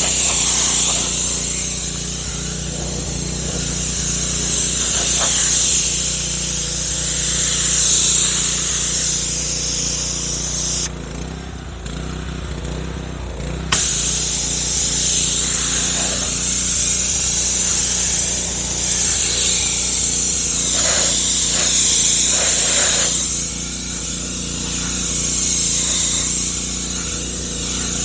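Pressure washer spraying through a wheeled four-nozzle undercarriage cleaner: a steady hiss of water jets over the steady hum of the running pressure washer. About eleven seconds in the spray stops for roughly three seconds, then starts again suddenly.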